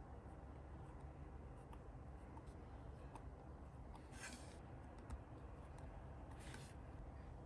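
Quiet journaling sounds: two short scratchy strokes on paper, about two seconds apart, with a few faint small clicks over a low steady hum.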